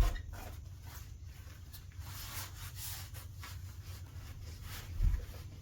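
Handling noise of plastic animatronic parts: rubbing and scraping as a leg piece is worked into the figure's shoe, with a dull thump at the start and another about five seconds in.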